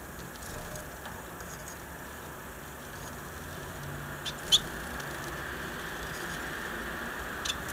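Caged finches giving a few short, high chirps about halfway through, one much louder than the rest, over a steady background hiss.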